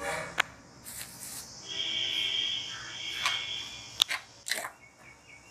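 A steel spoon clinks and scrapes against a steel bowl as curd and chopped vegetables are stirred, with sharp clinks near the start and about four seconds in. A steady high insect drone runs behind it, and a drawn-out high call is heard in the middle.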